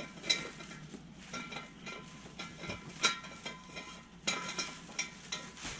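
Metal clinks and light rattles from handling the parts of a drip torch, with several sharper clinks that ring briefly.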